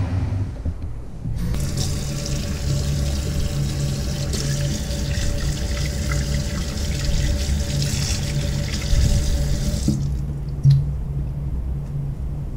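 Kitchen tap water running into a stainless steel sink, splashing over a slab of squid flesh as it is rinsed by hand. The tap comes on about a second and a half in and is shut off about ten seconds in. A low steady hum lies underneath throughout, and a brief thump comes near the end.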